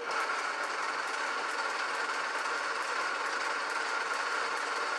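1929 South Bend lathe running in back gear, its lowest spindle speed: a steady mechanical whir with a fast, even ticking on top.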